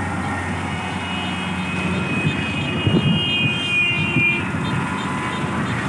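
Tracked rice combine harvester's diesel engine running steadily under load while it cuts and threshes, a continuous drone. A thin high whine rides over it for a few seconds in the middle.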